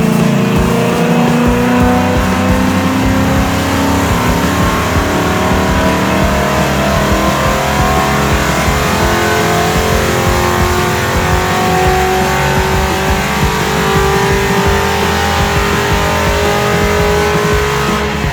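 Cammed 5.7 HEMI V8 of a 2014 Dodge Charger R/T with Kooks long-tube headers, running under way with a steady, loud exhaust note whose pitch climbs slowly.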